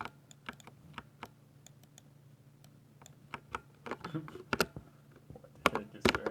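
Typing on a 60% mechanical keyboard with Ducky silver switches: irregular keystroke clicks, sparse at first, then coming faster and louder in the second half, with the loudest strokes near the end.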